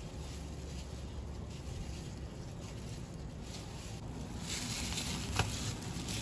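Hands in clear plastic gloves squishing and kneading ground-meat dumpling filling in a stainless-steel bowl, with the gloves crinkling. The sound gets louder about four and a half seconds in, and there is a sharp tap about a second later.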